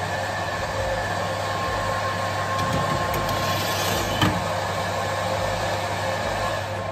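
Convection oven's fan running with a steady whir. A baking tray is slid onto the metal oven rack, with one short clunk about four seconds in.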